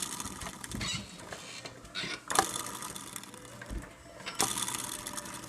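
Ceiling fan running on medium speed with a noisy, irregular mechanical rattling and clicking.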